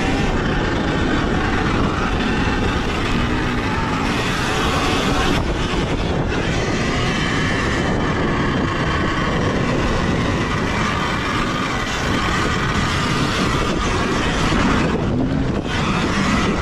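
Sur-Ron Ultra Bee electric dirt bike ridden at race pace on hard dirt: a steady, loud rush of wind over the bike-mounted camera's microphone with knobby-tyre and drivetrain noise underneath, and no combustion engine note.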